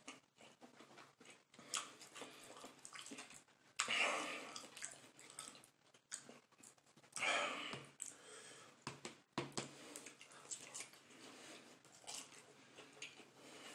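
Close-up mouth sounds of a man chewing chicken nuggets, soft wet clicks and smacks, with two loud breathy huffs of about a second each, around four and seven seconds in.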